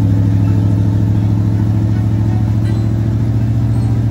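Vehicle engine running steadily at a constant speed, an even, pulsing hum with no revving.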